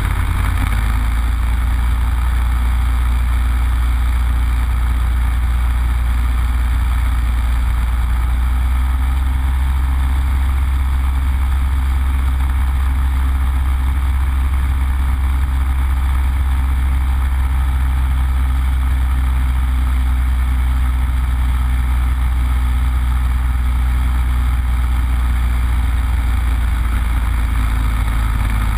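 Yak-52's nine-cylinder Vedeneyev M-14P radial engine and propeller running steadily, a deep drone with airflow noise, heard from inside the canopied cockpit during the final approach and landing.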